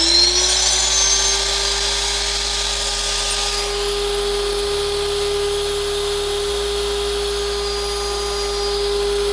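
Wood router running a test with no load: its motor finishes spinning up just after the start and then runs at full speed with a steady high whine.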